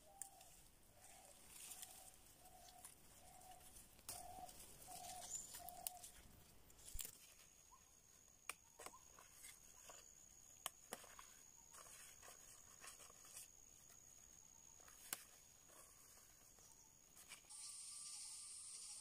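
Faint forest ambience. For the first six seconds a bird repeats a short hooting note about every half second, about ten times. Then come scattered sharp snaps and clicks of twigs and plants being handled, over a thin steady insect whine, and near the end a louder high insect buzz takes over.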